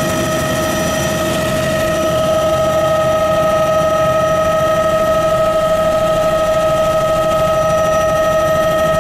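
Helicopter turbine and rotor running as the helicopter lifts off and climbs, heard from inside the cabin: a steady high whine over a dense low rotor rumble, getting slightly louder about two seconds in.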